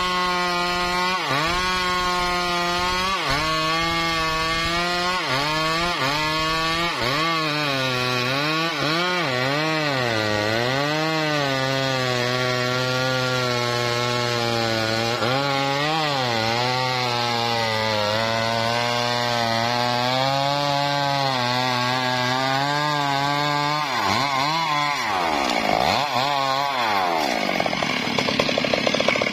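Stihl MS381 two-stroke chainsaw cutting through a large log at full throttle, its engine pitch sagging and recovering every second or two as the chain loads up in the wood. Near the end the engine speed drops sharply and revs back up a few times.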